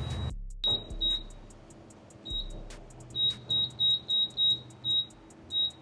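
Fuel pump keypad beeping as its buttons are pressed: short high beeps, a few scattered at first, then a quick run of about seven in the second half.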